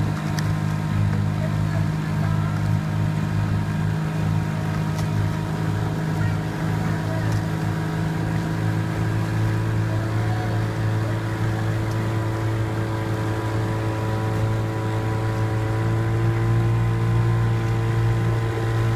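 Outboard motor of an aluminium coaching launch running steadily, heard from aboard the launch, its pitch rising a little near the end.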